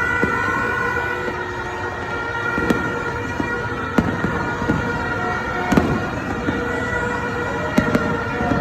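Fireworks going off: a handful of sharp bangs, about three, four, six and eight seconds in, the last two close together, over a continuous din of sustained high tones.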